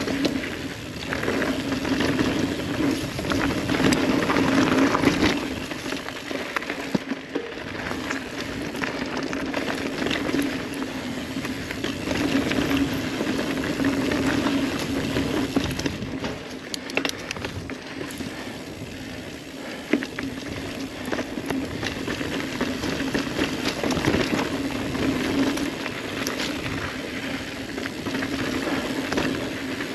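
Ibis Ripley mountain bike riding a dirt singletrack: knobby tyres rolling over the trail with a steady hum, and the chain and frame clattering over bumps.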